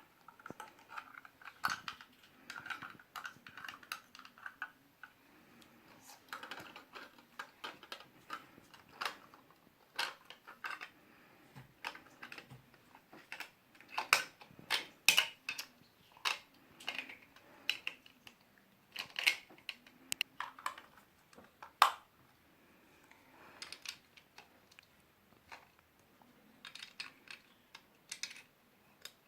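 Plastic LEGO bricks clicking and rattling as they are handled and pressed together during building: irregular small clicks, with a few louder clacks.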